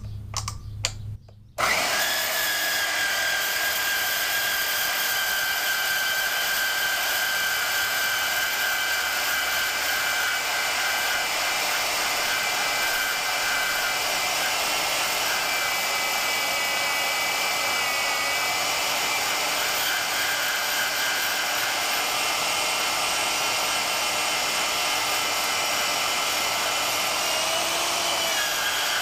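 Bauer 10-amp portable bandsaw switched on about a second and a half in, then running at its top speed as the blade cuts through steel angle iron, with a steady whine.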